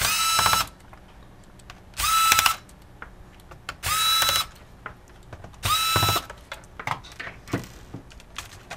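Electric screwdriver run in four short bursts about two seconds apart, each starting with a brief rising whine, as it backs out the four screws that hold a laptop keyboard in. A few light clicks follow near the end.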